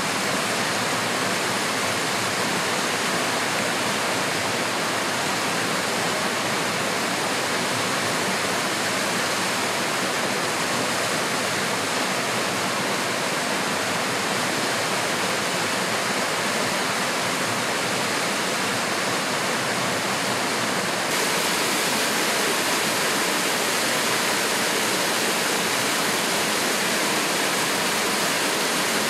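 Small waterfall on a mountain stream rushing steadily over boulders. About two-thirds of the way through it turns slightly louder and brighter.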